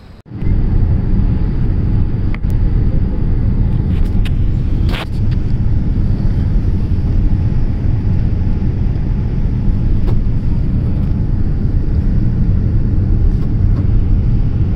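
Airliner cabin noise heard at a window seat on descent: a loud, steady low rumble of engines and rushing air, with a few faint clicks.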